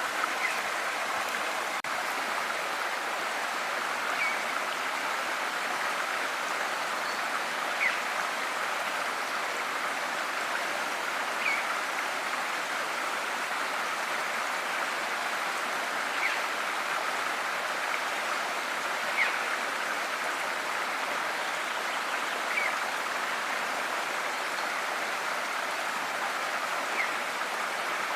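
River water flowing steadily in an even rushing wash, with short bird chirps about every three to four seconds.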